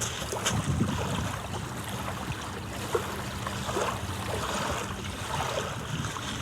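Beach ambience: wind rumbling on the microphone over the steady wash of surf.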